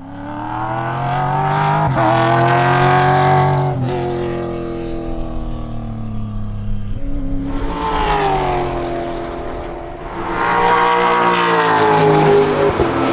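Race car's 5.0-litre Coyote V8 running hard on track, its note rising and falling through the gears, with a couple of sharp cracks around the gear changes. It comes loudest in two stretches, the second in the last few seconds.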